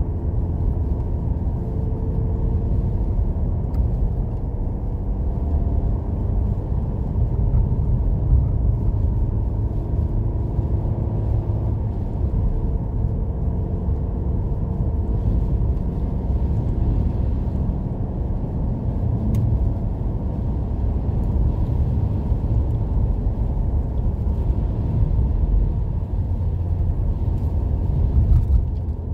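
Steady low rumble of a car driving, heard from inside the cabin: tyre and engine noise on a snow-covered road.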